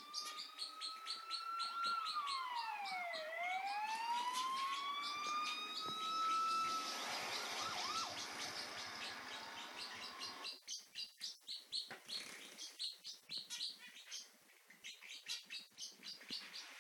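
Parrotlets chirping in quick, repeated short calls. Over the first half a siren wails slowly up and down in the background, then stops about ten seconds in.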